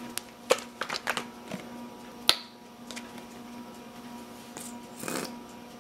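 Clicks and knocks of a plastic mustard squeeze bottle being picked up and opened, the sharpest click about two seconds in, then a short hissing squirt about five seconds in as the bottle is squeezed. A faint steady hum lies underneath.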